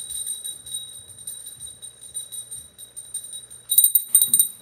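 Temple hand bell rung rapidly during worship, a steady high ringing with quick strikes that grow louder near the end.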